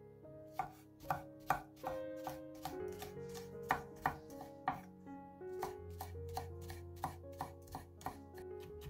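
Chef's knife slicing garlic cloves on an end-grain wooden cutting board: a run of uneven knocks of the blade on the wood, about three a second, starting about half a second in.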